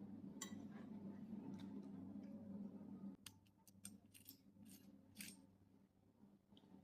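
Faint crisp crunching and clicking of someone eating crispy fried chicken, with a cluster of sharp crackles about three to five seconds in. A low steady hum underneath stops about three seconds in.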